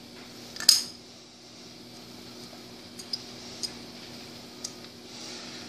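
Small metal aircraft parts clinking in the hands as a piece is worked loose: one sharp clink about a second in, then a few lighter clicks. A low steady hum runs underneath.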